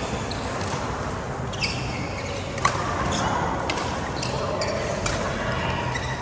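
Badminton rackets striking the shuttlecock during a rally: several sharp hits at uneven intervals, the loudest about two and a half seconds in.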